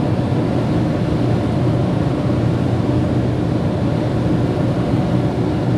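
Steady road noise of a car cruising on a motorway, heard inside the cabin: an even rush of tyres and engine with a low hum underneath.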